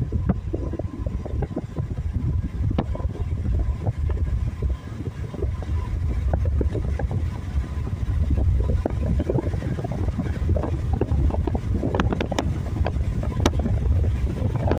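Road rumble and wind noise from a moving car, with wind buffeting the microphone and scattered sharp clicks.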